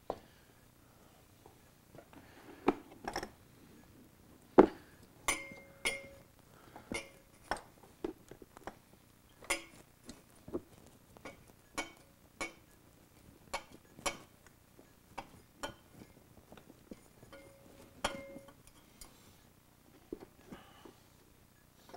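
Irregular clicks, knocks and clinks of hands and parts at work on a Honda CRF450R carburetor, as its rubber vent lines are pulled free of their holders. A brief ringing tone sounds twice, about five seconds in and again about eighteen seconds in.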